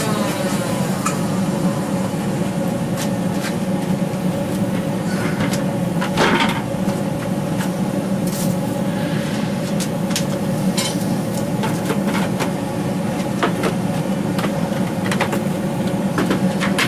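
Forge running with a steady rushing noise while the billet heats, with scattered clanks and clicks of metal tools and stock, a louder one about six seconds in.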